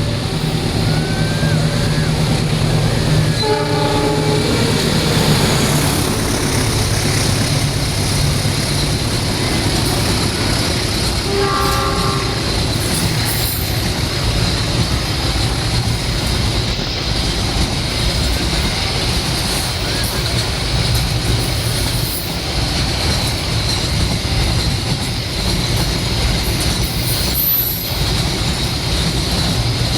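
A train running past on the rails: a loud, steady rumble and clatter of wheels and cars. Two brief tones sound over it, about four and twelve seconds in.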